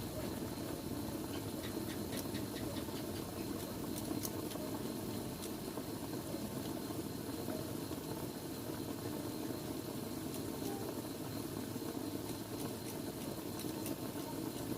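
Chicken adobo simmering in a pot: a steady bubbling hum with faint scattered pops and crackles.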